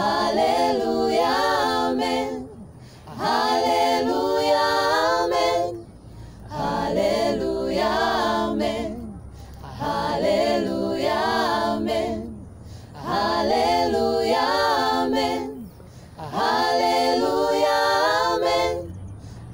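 A small group of mixed voices singing a Swahili worship song a cappella, in sung phrases of about three seconds with short breaks between them.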